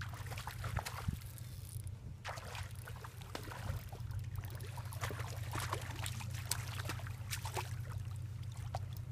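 A hooked white bass splashing and thrashing at the water's surface as it is reeled in toward the bank, with irregular splashes and clicks over a steady low hum.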